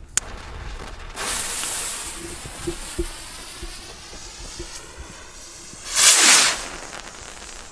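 A Funke red salute rocket: a brief click just after the start, then its lit fuse hisses and sputters for about three and a half seconds. About six seconds in the rocket motor fires and it launches with a loud whoosh that falls in pitch as it climbs away.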